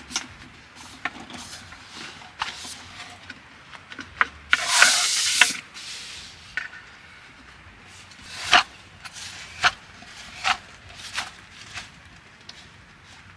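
Aluminium legs of a bamboo folding camping table being unfolded and locked, with a series of sharp clicks and knocks from the leg joints. A longer scraping rub comes about four and a half seconds in.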